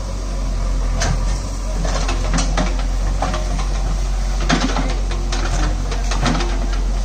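Diesel engine of heavy earth-moving machinery running steadily, with scattered knocks and clanks over it.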